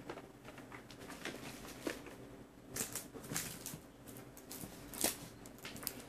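Scattered rustles and light knocks of a taped cardboard box being picked up and handled, a little louder about three and five seconds in, over a faint steady low hum.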